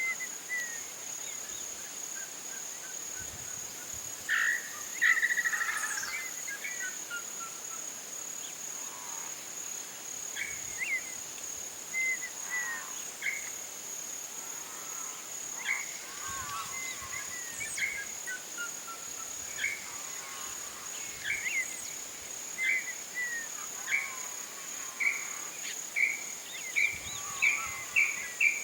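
Dusk chorus of wildlife: a steady high-pitched insect trill, with assorted bird calls over it, including a few falling series of notes and a loud burst of calls about five seconds in. The calls come more often towards the end.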